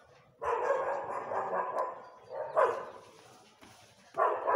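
A dog barking: a quick run of barks, then single barks about two and a half seconds in and near the end.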